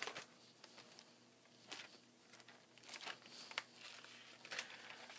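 Pages of a Bible being turned, a scattering of faint paper rustles and flicks.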